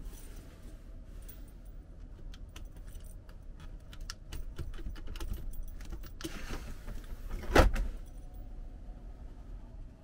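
Rapid light clicks and rattles of small hard objects being handled, like keys jangling, with one louder knock about seven and a half seconds in.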